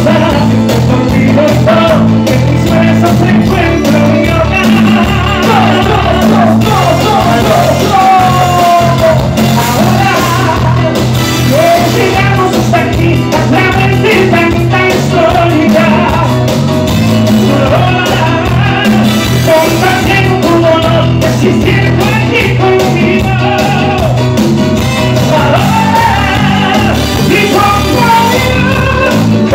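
Live Latin band playing loud and steady, with a sung vocal line over drums, congas and heavy bass.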